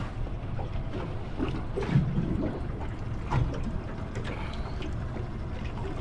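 Wind on the microphone and water lapping against a small boat's hull, a steady low rumble with a few faint knocks.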